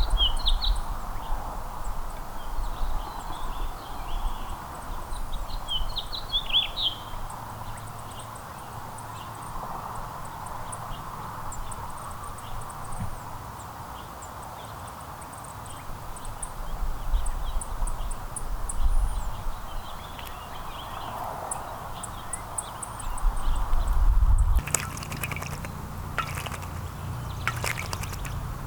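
Small songbirds chirping in short, scattered calls over steady outdoor background hiss. Near the end come a run of sharp clicks and crackles.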